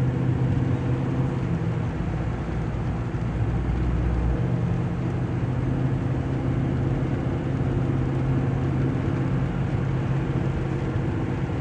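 Steady car engine drone and tyre and road noise heard from inside the cabin while driving at speed; a deeper low rumble eases about four seconds in.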